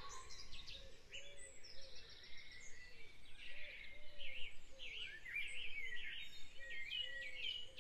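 Faint dawn chorus of many birds chirping and singing at once, with a busy run of quick rising-and-falling whistled notes in the middle and softer, lower repeated calls underneath.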